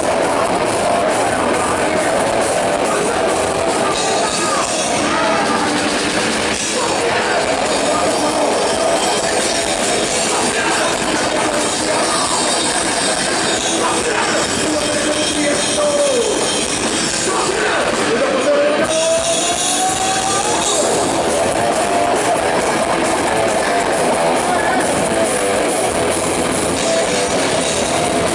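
Heavy metal band playing live, heard loud from the audience: pounding drum kit and dense, distorted instruments with singing in a steady wall of sound.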